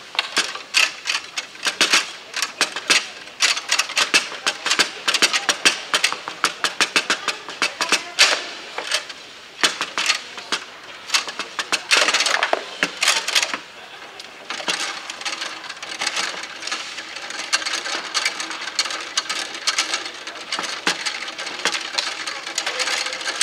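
Bonzini table-football game in fast play: irregular sharp clacks of the ball striking the men and table walls, and rods knocking as they are spun and slid. The clacks come thick and loud over the first dozen seconds or so, then lighter.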